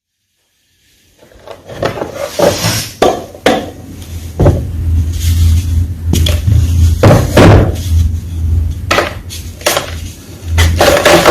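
Fresh white gym chalk crunching and snapping: a run of loud, sharp cracks and crumbly crunches that starts about a second in.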